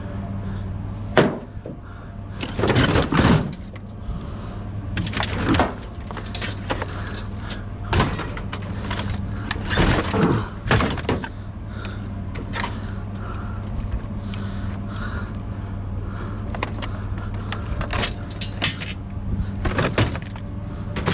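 Scrap being handled and taken apart: repeated clattering, knocks and rattles of metal and hard parts, over a steady low hum.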